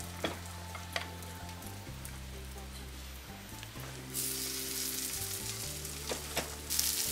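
Bean burger patties sizzling in hot oil in a frying pan; the sizzle gets louder about four seconds in as another spoonful of mixture goes into the pan. A metal spoon clinks against a glass mixing bowl a few times.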